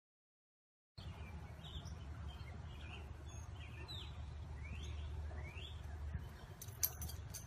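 Small birds chirping a few times in short sliding calls over a steady low outdoor rumble, starting about a second in. A sharp click near the end is the loudest moment.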